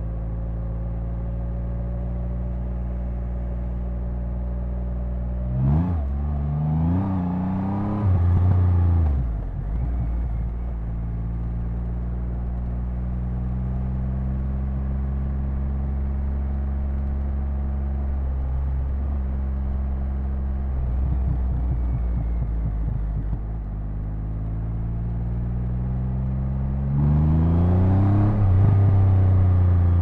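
Triumph Rocket 3's 2,458 cc inline-three engine and exhaust under way, running steadily at cruising revs. About six seconds in the revs climb hard twice with a gear change between, then fall back. Near the end there is another, louder acceleration.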